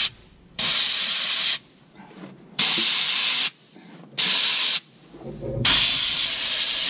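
Compressed air hissing from an air-hose blow gun in four short blasts, the last one longer, blowing dirt and sediment out of the engine's spark plug wells.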